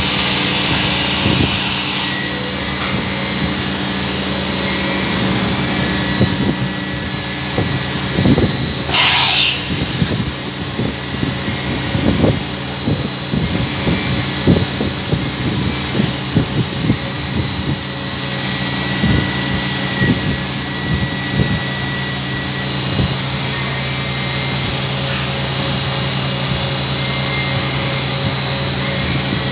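CNC vertical machining centre running: a steady machine hum with irregular clicks and knocks through the middle, and a brief hiss about nine seconds in.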